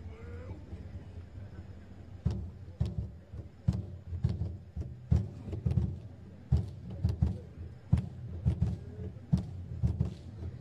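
Polynesian drum group beating large skin drums. The loud strikes begin about two seconds in, after a low steady hum, and go on about two to three a second in an uneven rhythm.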